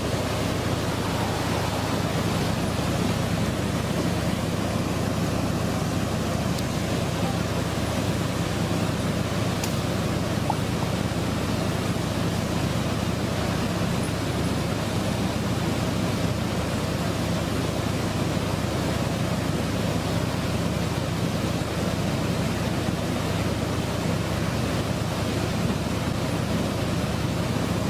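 Fast mountain river rushing over rocks in a steady roar of water, with a low, even hum of the trucks' diesel engines running underneath.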